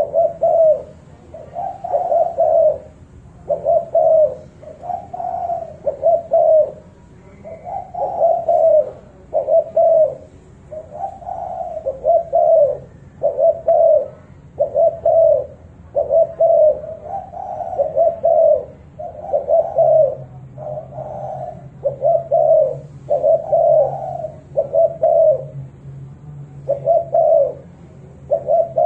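Spotted dove cooing over and over, a run of short coo notes about once or twice a second with brief pauses between phrases. A low steady hum joins about two-thirds of the way in.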